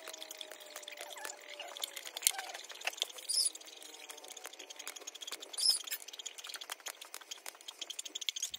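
TIG welding arc on a titanium exhaust header pipe: a continuous fine crackling hiss with two sharper louder spikes, and a faint steady tone during the first two seconds.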